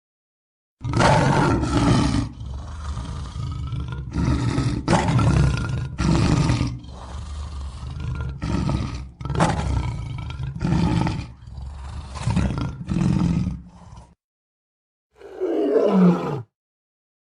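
Lion roaring: a long series of deep, grunting roars repeated in a steady rhythm, followed after a short pause by a single shorter roar that falls in pitch.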